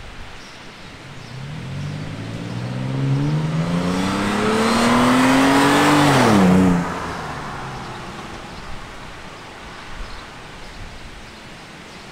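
Toyota 4Runner's 4.0-litre V6 through a Borla S-Type stainless cat-back exhaust, accelerating past. The exhaust note climbs in pitch as it approaches and is loudest about six seconds in. It then drops sharply as the truck passes and fades away.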